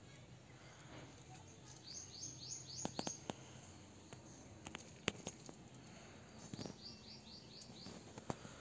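A small bird singing two short phrases, each a quick run of about five high, rising notes, the second about four seconds after the first. A few sharp clicks fall between and after them.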